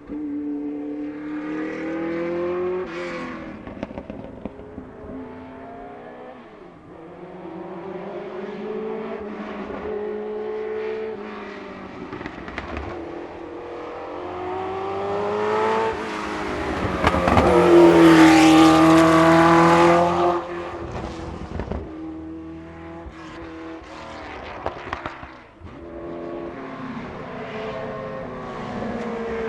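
Porsche 908/3 Spyder's air-cooled 3.0-litre flat-eight racing engine accelerating hard, its pitch climbing through the gears and dropping at each upshift. It is loudest as the car passes close, about two-thirds of the way through, then fades as it carries on revving up the hill.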